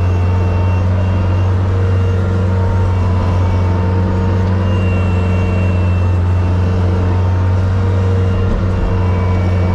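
Snow-plow vehicle's engine running steadily, a constant low drone with no change in speed.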